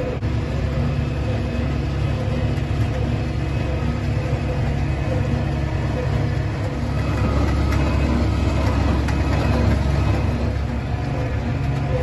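Case tractor engine running steadily under load, heard from inside the cab, with a low hum that grows a little louder from about seven to ten seconds in.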